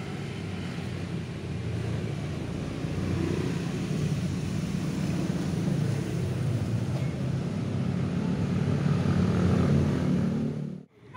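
Steady low rumble of road traffic going by, swelling a little in the middle and late part, then cutting off abruptly near the end.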